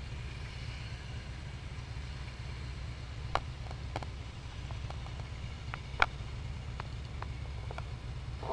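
Motorcycle engine running low and steady at slow riding speed, with a few faint light clicks.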